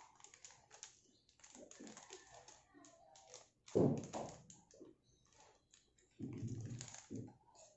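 Plastic instant-noodle packet being handled and crinkled, a dense run of small sharp crackling clicks, with two louder stretches about four and six and a half seconds in.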